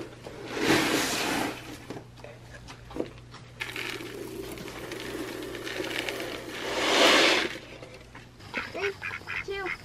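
Feed pellets poured from a plastic scoop into a plastic bucket: a rushing rattle about a second in and again around seven seconds in. Short pitched calls of chickens begin near the end.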